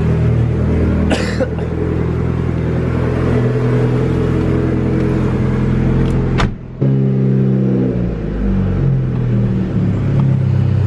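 Mitsubishi Evo 8's turbocharged four-cylinder engine running steadily, with a short break in the sound about six and a half seconds in, after which the engine note shifts.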